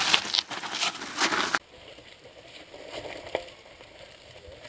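Mountain bike rolling past close by, its tyres crunching and crackling over dry leaves, dirt and rocks with rattling clicks. The sound cuts off abruptly after about a second and a half, leaving only faint background.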